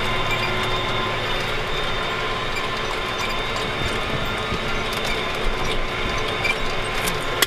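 Inside a tractor cab while cutting hay with a New Holland 316 discbine: the steady drone of the engine and mower drive with a constant whine, and small rattles and ticks from the cab on rough ground.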